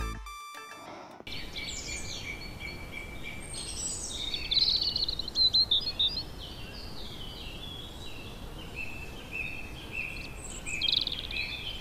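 Morning birdsong ambience: many small birds chirping and trilling over a steady outdoor hiss, busiest about four to six seconds in and again near the end.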